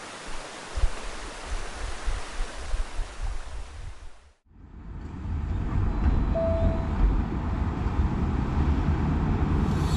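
Steady outdoor rushing noise with wind buffeting the microphone in irregular low gusts. It cuts out for a moment about four seconds in, then comes back with a heavier low rumble.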